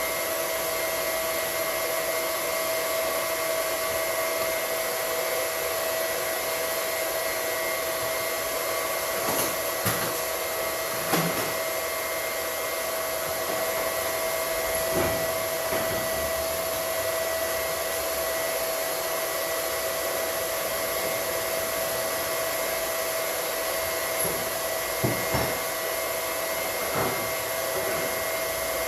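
Steady whirr of an electric motor or fan with a constant whine, and a few light knocks and clinks of work scattered through.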